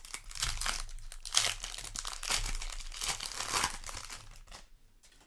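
Foil wrapper of a Magic: The Gathering play booster pack crinkling as it is handled and torn open, dying away about four and a half seconds in.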